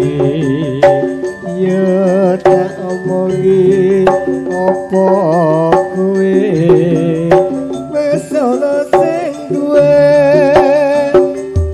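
Campursari band music played live: a steady run of hand-drum strokes under a wavering melody and sustained chords.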